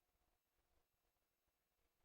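Near silence: a pause in the recording with no audible sound.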